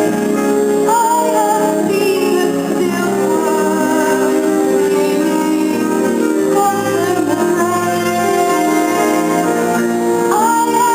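Youth theatre cast singing a stage-musical number over instrumental accompaniment, with long held notes that slide in pitch.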